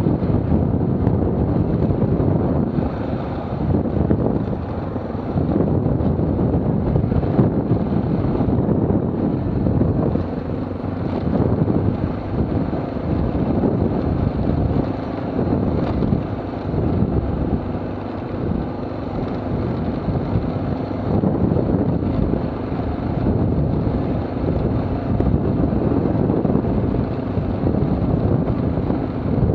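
Off-road motorcycle running at low speed, with wind rumbling steadily on the microphone.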